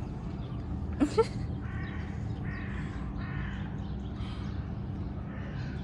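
Crows cawing repeatedly, a harsh call roughly every second, with a short, louder call rising in pitch about a second in.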